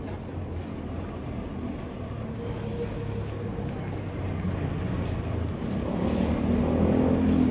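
A low, steady vehicle rumble that grows louder near the end as it draws closer.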